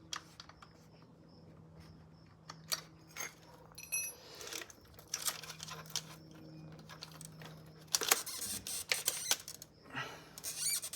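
Scattered clicks and metallic clinks of hand work on a bicycle, with a short metallic ring about four seconds in and a burst of clattering near the end, over a steady low hum.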